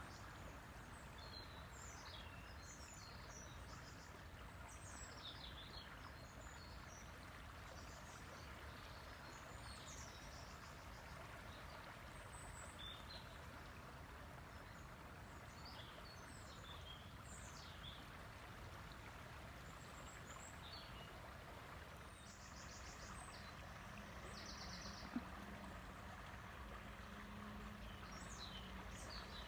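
River water flowing with a steady, soft rush, while small birds chirp and call on and off throughout. About two-thirds of the way in, a faint low hum sets in and a short buzzy trill is heard.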